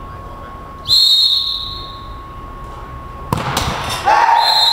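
A referee's whistle blows one blast about a second in. A little over three seconds in, the ball is struck hard with a sharp thud, and a second whistle blast follows near the end as a goal is given.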